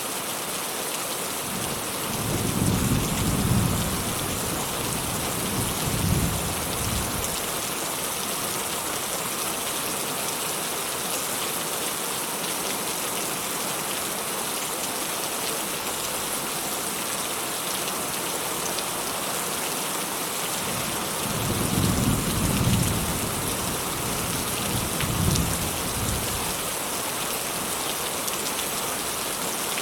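Steady rain falling, with distant thunder rumbling twice: once a couple of seconds in, and again around two-thirds of the way through.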